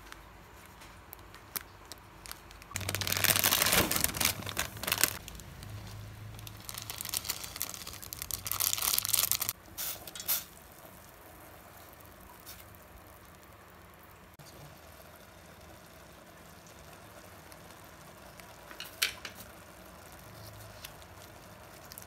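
Plastic instant-ramen flake sachet being crinkled and torn open, in two bouts of crackly rustling about three seconds in and again about seven seconds in. After that it is quieter, with a brief crinkle near the end.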